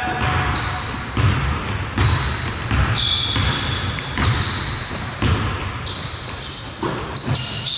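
A basketball bouncing on a gym floor in a large echoing hall, a low thud roughly once a second at an uneven pace, with short high squeaks and voices in the background.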